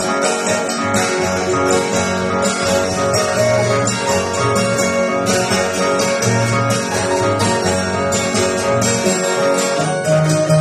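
Andean harp and acoustic guitar playing an instrumental passage together: a plucked melody over low bass notes.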